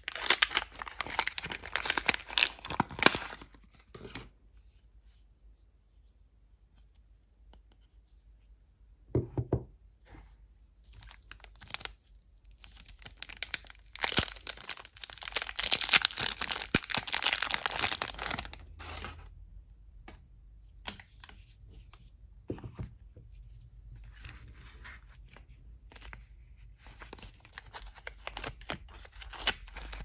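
Soap bar wrappers being torn open and crinkled by hand, in bursts of crackling and tearing with quiet gaps between. First comes a paper wrapper, then a long loud stretch of thin plastic film crinkling in the middle, then softer rustles and more crinkling near the end.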